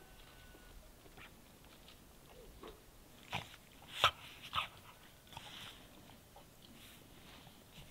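Dogs playing in snow, giving three short, sharp yips about three to four and a half seconds in, the middle one the loudest.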